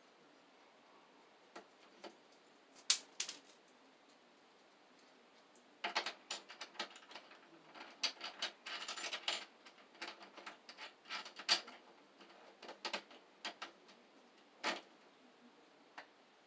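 Irregular metallic clicks, taps and scraping from wire and tools being handled inside an open electrical breaker panel, with a sharp clack about three seconds in as the loudest, and a busier run of clicking and scraping through the middle.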